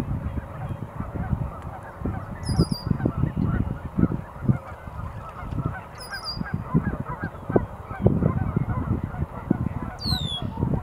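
A flock of geese honking in a dense, continuous chorus, with a low rumble at times. A bird's high, falling call sounds three times over it.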